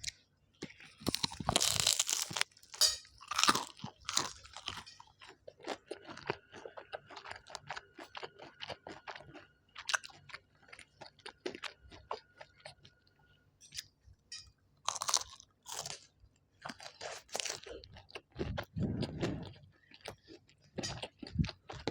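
Close-up chewing of crunchy food: irregular crackling crunches and bites, some in quick clusters.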